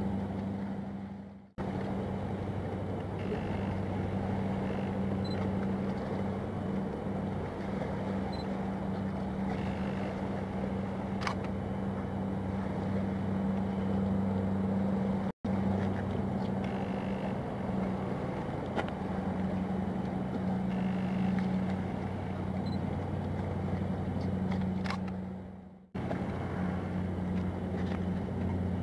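Steady low engine drone with a deep, even hum, breaking off briefly three times.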